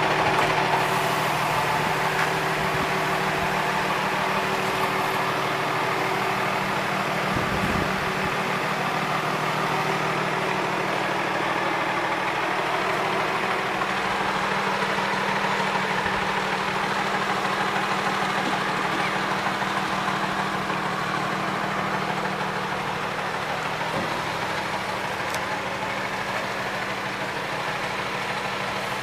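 An engine idling steadily, with a constant low hum.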